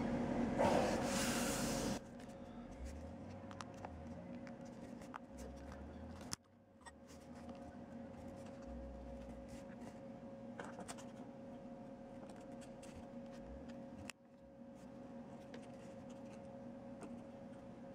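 A knife blade slicing through paper for about two seconds. Then come faint scattered clicks and ticks of a Cardsharp credit-card knife's thin plastic panels being folded and handled, over a steady low hum.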